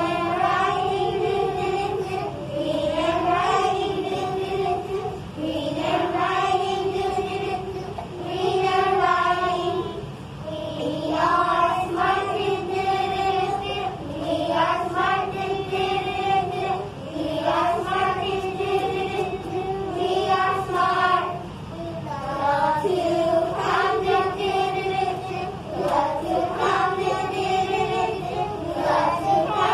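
A group of young children singing together in unison, without accompaniment, in short repeated phrases that each slide up into a held note.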